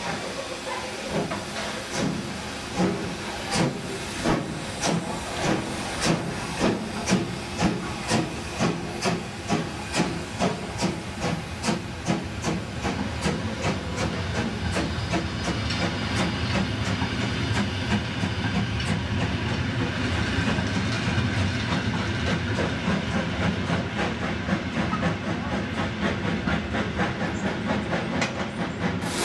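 Steam tank locomotive 75 1118 pulling away from a standstill with its train. Its exhaust chuffs come at a regular beat, then quicken and fade into a steady hiss and rumble as it draws off. Steam hisses alongside.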